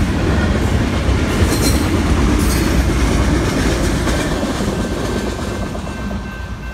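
Double-stack intermodal freight cars rumbling and clattering over the rails as they pass, with a few brief high metallic squeals about two seconds in. The rumble fades over the last few seconds as the end of the train goes by.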